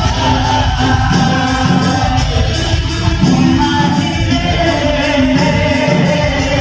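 Live stage music with singing, played loud over the loudspeakers of a large hall.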